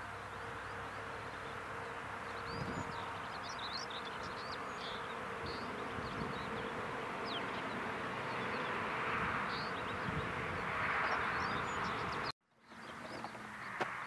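Open-field ambience: a steady insect buzz, with many short, high bird chirps scattered over it. The sound drops out completely for a moment about twelve seconds in.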